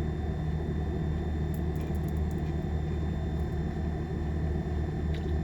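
Steady low hum of an idling car engine.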